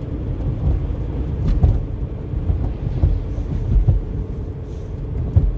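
Car driving: steady low road and engine rumble heard inside the cabin, with a few light knocks from bumps along the way.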